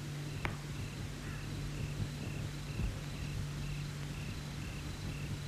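Crickets chirping steadily in the background, short high chirps about three a second, over a low steady hum. A single sharp click sounds just after the start.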